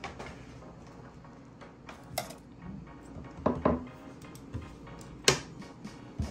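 Metal kitchen tongs clicking and tapping against a nonstick air fryer basket and a ceramic plate as breaded shrimp are lifted and set in. There are a handful of scattered clinks, the sharpest near the end.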